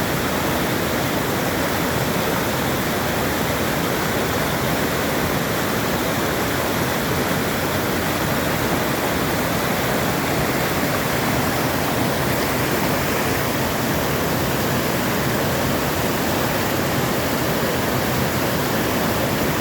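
Water of a mountain stream rushing steadily, an even, unchanging rush.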